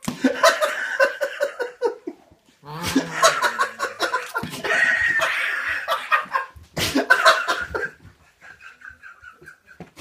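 A person laughing hard in several long fits of quick, breathy pulses with short breaks between them, dying down near the end.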